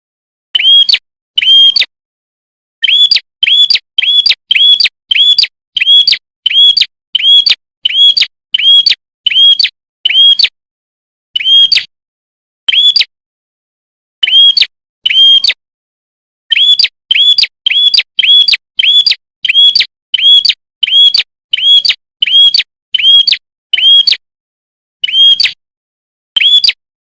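A prenjak (prinia), sold as the red-headed prenjak, calling loud, sharp, identical chirps over and over, about one or two a second, in runs with a few short pauses.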